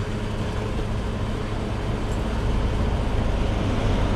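Fuel dispenser running while fuel is pumped through the nozzle into a container: a steady low hum from the pump under an even rush of flow.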